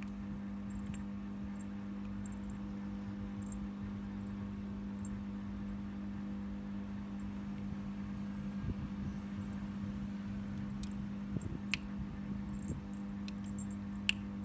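Steady low hum with a faint hiss, the constant background of a small room. In the last few seconds come a few light, sharp taps as the kitten bats at a dangling plastic bottle cap.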